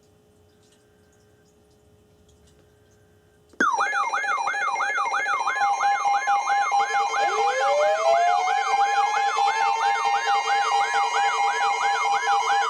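Near silence, then about three and a half seconds in several weather alert radios go off at once for a severe thunderstorm warning: a warbling siren-like alarm going up and down about three times a second, layered with steady tones and a fast beeping tone, and one tone that rises in pitch a few seconds later.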